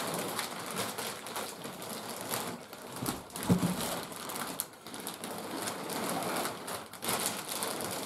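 Large clear plastic packaging bag crinkling and rustling continuously as hands pull and gather it.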